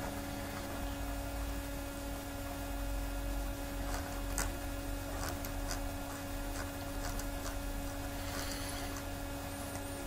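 Steady electrical hum with a faint hiss from the recording setup, with a few faint clicks about four seconds in and again later.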